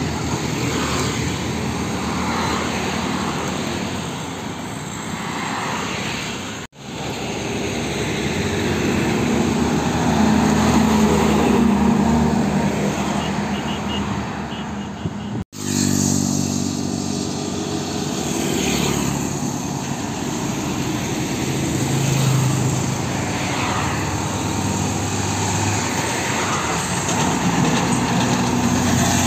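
Road traffic going past: lorries and cars drive by one after another, their engine and tyre noise swelling and fading as each passes. The sound cuts out briefly twice.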